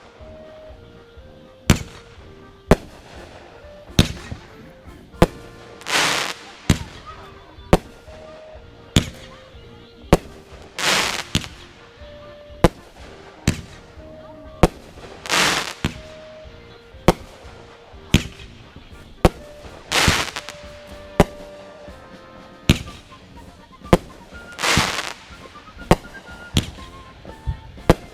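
Fireworks going off: sharp bangs about once a second, with a longer crackling burst every four or five seconds.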